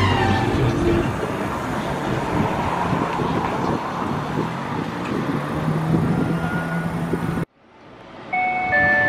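Tokyo Sakura Tram 7700-series streetcar standing at a platform, with a steady low hum over general platform noise. The sound cuts off suddenly, then a two-note electronic chime sounds near the end.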